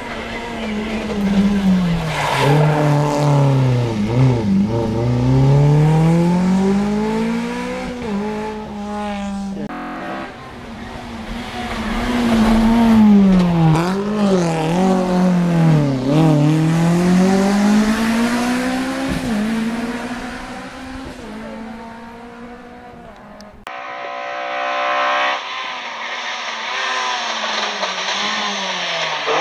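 Rally car engine running hard through corners, its pitch dropping as it slows and downshifts, then climbing again as it accelerates out, several times over.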